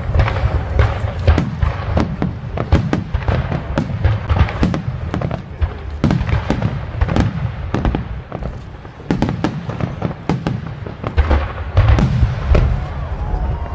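Aerial fireworks shells bursting in quick succession: several booms and cracks a second over a continuous low rumble, thinning briefly about eight seconds in before building again.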